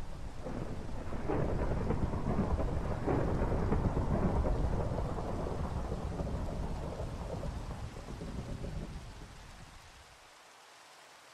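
Rain and thunder ambience: steady rain with low, rolling thunder swelling and receding, fading away near the end.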